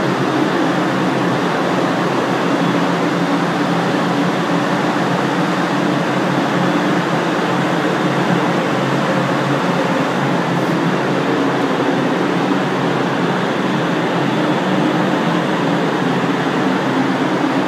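Steady, loud rush of air from a paint spray booth's ventilation fans running, with a faint low hum underneath.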